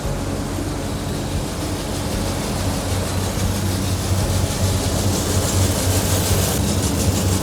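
Green coffee bean screen-size sorting machine running: a steady motor hum under a fast, dense rattle that gets louder about halfway through.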